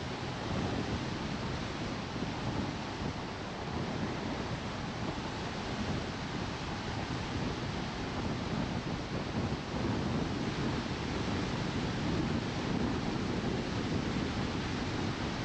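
A car driving at road speed: steady rushing wind and tyre noise, with wind buffeting the microphone.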